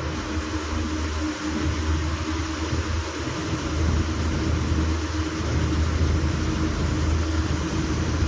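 Combine harvester engine running steadily: a constant low hum with a steadier higher tone, under an even rush of machinery noise.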